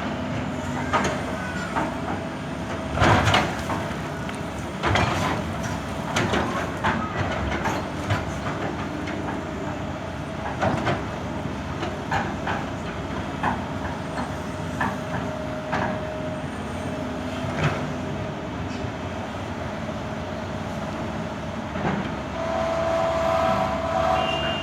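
Excavator at work: its diesel engine runs steadily under many sharp metallic clanks and knocks, the loudest about three seconds in. A steady whine rises near the end.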